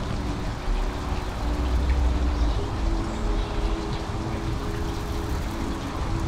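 Soft background music of held chords that change pitch about halfway through, over a low rumble that is strongest about two seconds in.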